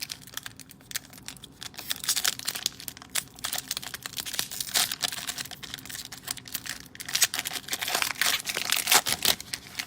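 A cellophane trading-card pack wrapper crinkling as it is torn open and the cards are pulled out: a dense run of small irregular crackles, busiest around two seconds in and again about seven to nine seconds in.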